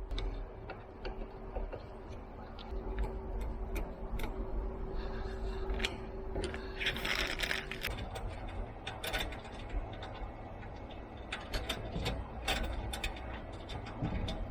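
Clicks and rattles of metal rack-mount hardware being handled, over a steady hum, with a brief louder burst of rustling noise about seven seconds in.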